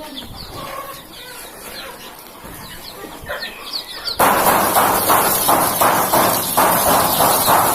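A flock of broiler chickens clucking, with many short, high, falling peeps. About four seconds in, a much louder rushing noise with quick pulses starts suddenly and keeps going.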